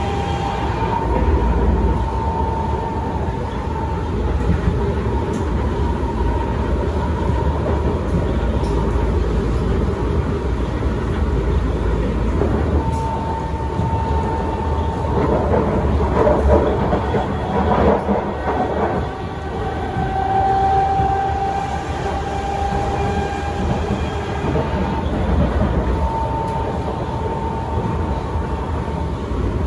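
Kawasaki C151 metro train heard from inside the car while running at speed: wheel and rail rumble under the whine of its GTO traction inverter, a set of steady tones that come and go and step in pitch now and then. A stretch of louder clattering comes about halfway through.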